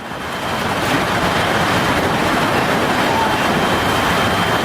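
Steady roar of a severe storm, wind and downpour together. It swells over about the first second and then holds.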